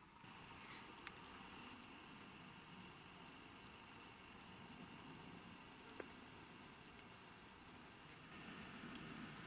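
Near silence: faint forest ambience with a small bird's thin, high calls repeating, and a couple of faint clicks.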